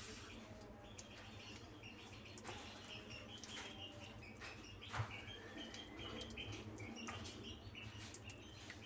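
Faint bird chirping in the background, short high chirps repeating throughout, over soft wet squelches of hands rubbing a thick yogurt-and-spice marinade into a whole chicken in a steel bowl, the clearest about five seconds in.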